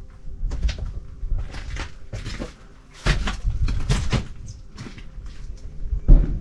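Footsteps crunching over broken glass and debris, roughly two steps a second, over a low rumble.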